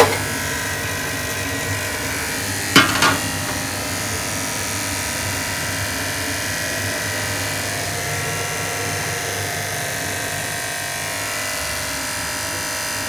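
Gas stove burner flame hissing steadily under a large aluminium pot of water that is heating. Two sharp knocks come at the very start and about three seconds in.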